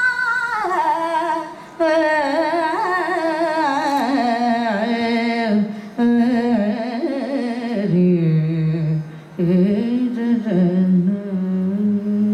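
Female Carnatic vocalist singing a long melismatic phrase, the pitch wavering through gamaka ornaments and gradually descending. There are short breaths between phrases, and she settles on a steady held low note near the end.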